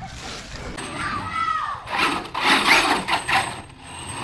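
Electric RC monster truck accelerating across plywood and driving up a wooden warped-wall ramp: motor whine and tyre noise on the wood.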